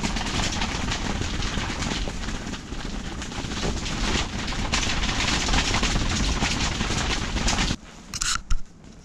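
Storm wind buffeting the ice-fishing tent, a loud rushing noise with a fast flutter that cuts off abruptly near the end. Then a couple of sharp knocks as a hand handles the camera.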